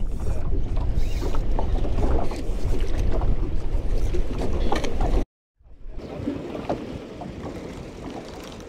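Wind buffeting the microphone with a heavy, uneven low rumble over water lapping and small knocks around a small boat. About five seconds in it cuts off abruptly and gives way to quieter wind and water.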